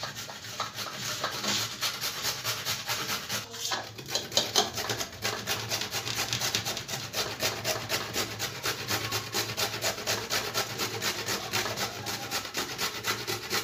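Carrots being grated by hand on a flat stainless steel grater into a steel bowl: quick, steady, repeated scraping strokes.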